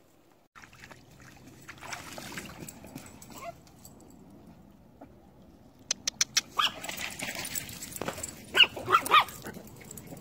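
Dogs moving and splashing in a shallow puddle, with a quick run of sharp clicks about two-thirds of the way through; then a dog gives three short, high yelps near the end.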